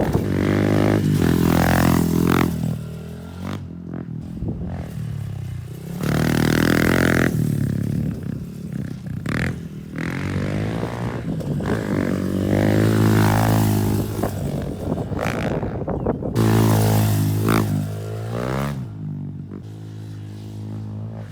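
Fuel-injected Honda CRF110 pit bike's single-cylinder four-stroke engine through a Pro Circuit T-6 exhaust, being ridden hard: the engine note climbs and falls repeatedly, with loud surges every few seconds and quieter stretches between them.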